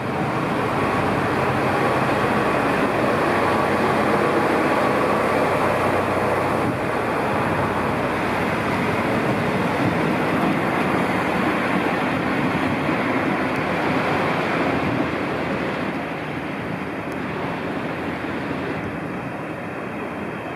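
HSOR-100 diesel railcar pulling away under power: the diesel engine and the running gear on the rails make a steady, loud noise. The engine note changes about seven seconds in, and the sound grows fainter from about fifteen seconds in as the railcar moves off.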